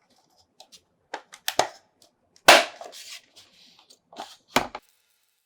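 Plastic clicks and knocks of a GoPro Karma drone's case being handled and pressed back together, with one sharp snap about two and a half seconds in and another knock near the end.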